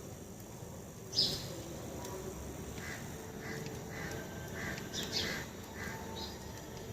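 Wild birds calling: a series of short, repeated calls, with two louder, sharper calls about a second in and about five seconds in.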